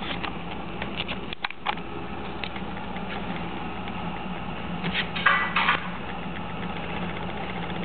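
West Highland white terrier's claws ticking on a tile floor a few times in the first two seconds, then a short sniff right at the microphone about five seconds in, over a steady low hum.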